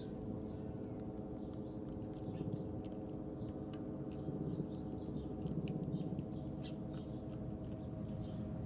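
Short bird chirps scattered over a steady, droning hum.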